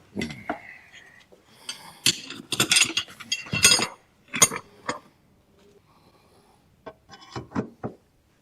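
Metal hand tools clinking and clanking in a run of short, sharp knocks: pry bars and other tools being handled and set against the metal rack. A quieter spell of about two seconds comes before a last cluster of clinks near the end.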